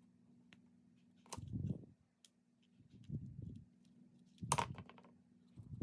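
Hands working small parts and tools at close range: four short bursts of rustling and clicking, over a faint steady hum.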